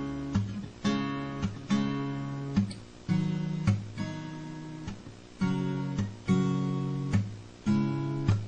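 Background music: an acoustic guitar strumming chords, with a fresh strum about once a second and no singing.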